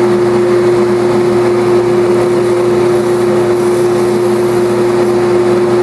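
Combination belt and disc sander running with the dust-extraction system, a loud steady hum of constant pitch; the disc is running free with no workpiece against it.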